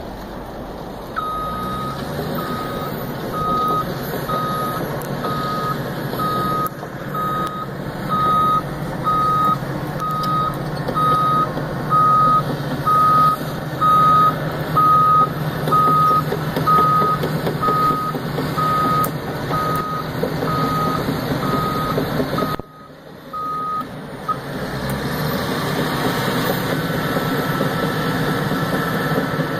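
Tracked bulldozer's diesel engine running steadily while its reversing alarm beeps, one high beep a little more than once a second. The beeping stops about three-quarters of the way through while the engine runs on.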